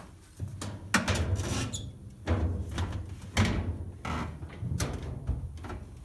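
Sheet-metal front panel of a Kenmore dryer being shoved and lifted into place against the cabinet and drum: a series of clunks, about five, with scraping and rattling between them.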